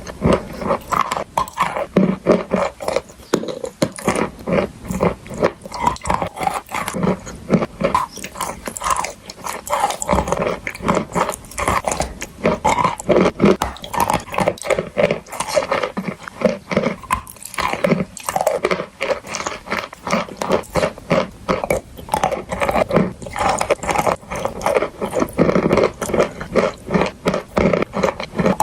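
Close-up biting and chewing of chalk and clay: dense, irregular crunching and crackling, bite after bite.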